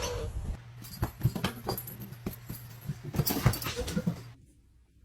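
A dog giving a quick series of short, high cries, stopping abruptly about four seconds in.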